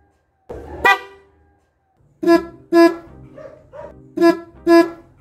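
A newly fitted Bosch Fanfare Compact car horn, wired through a relay, is sounded in a test: one short toot about a second in, then two quick double toots.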